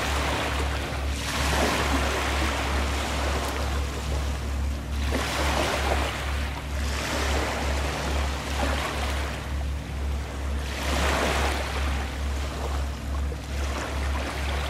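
Sea waves washing in, swelling in surges every two to three seconds, over a steady low throbbing rumble.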